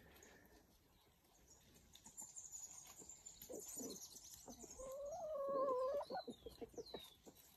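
Birds chirping faintly with high, falling notes. About five seconds in, a louder wavering animal call lasts about a second, followed by a short run of soft knocks.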